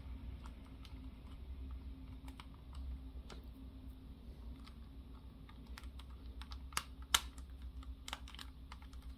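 Plastic model-kit puzzle pieces clicking and tapping irregularly as they are worked and fitted together, with a sharper click about seven seconds in. A steady low hum runs underneath.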